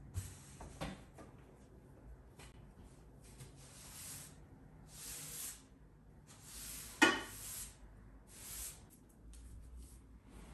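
Furniture being moved about the room: a few small knocks as a wooden dining chair is lifted and set down, then several soft swishing strokes, and a single sharp knock about seven seconds in, the loudest sound.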